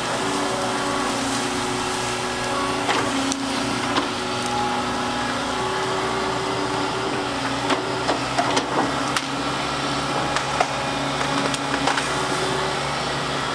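Volvo crawler excavator working: the diesel engine runs steadily while the hydraulics whine, changing pitch in steps as the controls move. Scattered sharp knocks and clatter, most of them in the second half.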